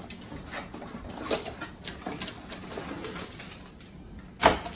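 Cardboard box and plastic wrapping being handled as a packaged car sun visor is pulled out: a run of rustles, crinkles and small clicks, with one sharp, much louder crackle near the end.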